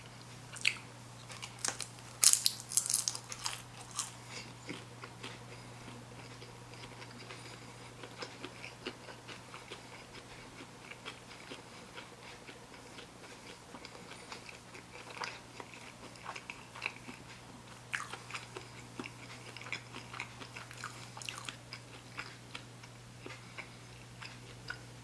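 Close-miked eating of sushi rolls: biting and chewing with wet mouth clicks and some crunch, busiest about two to four seconds in, over a steady low hum.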